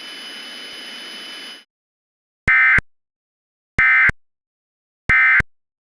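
Radio static hiss with faint steady tones cuts off abruptly about 1.6 s in. Three short, identical bursts of screeching digital data tones follow, about a second and a half apart: the Emergency Alert System end-of-message (SAME EOM) code, which marks the end of the alert.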